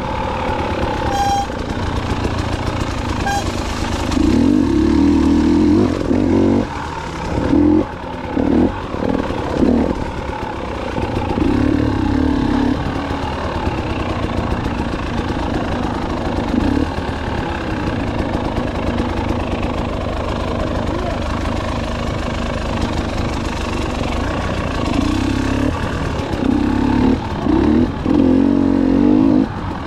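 KTM 300 XC-W dirt bike's two-stroke single-cylinder engine running under way, the throttle opened and closed again and again so the engine note rises in short bursts and drops back between them.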